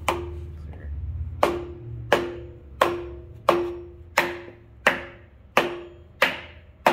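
Hammer blows driving a crank pulley onto a 2JZ crankshaft snout: a steady run of sharp metallic strikes, roughly one every 0.7 s, each ringing briefly. The pulley is a tight fit and is going on slowly.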